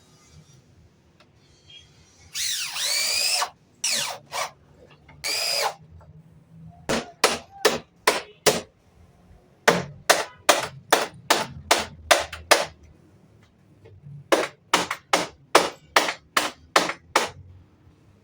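Handheld power tool working wood. It first runs for about a second with a whine that sweeps up and down, then fires many short bursts, about three a second, in three runs.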